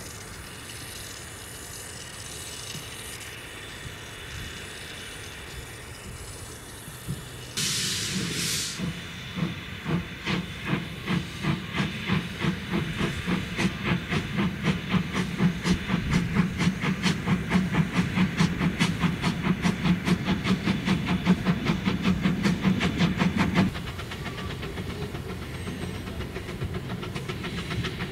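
Narrow gauge steam saddle-tank locomotive: a soft steady steam hiss, then a sharp burst of steam about seven seconds in. Its exhaust chuffs then start slow and quicken to a fast, even beat as it gets its train moving, and they cut off abruptly a few seconds before the end.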